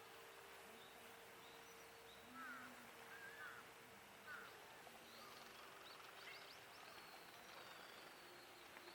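Faint outdoor ambience with distant small birds calling: a few short sweeping chirps about two to four seconds in, then thin high calls later.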